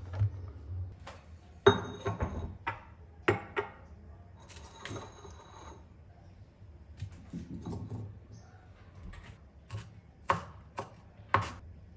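Kitchen prep sounds: scattered knocks and clinks as items are set down on a granite counter, two of them ringing briefly. Near the end come a few sharp knife chops on a bamboo cutting board, cutting shallots.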